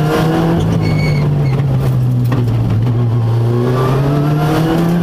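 Ford Fiesta R5's turbocharged 1.6-litre four-cylinder engine, heard from inside the cabin, accelerating hard through the gears. The revs climb, drop at an upshift about two seconds in, then climb again toward another shift at the end, over a steady low drone.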